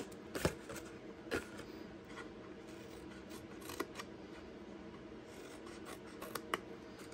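Scissors snipping the corners off scored cardstock flaps: a few short, faint snips spread apart.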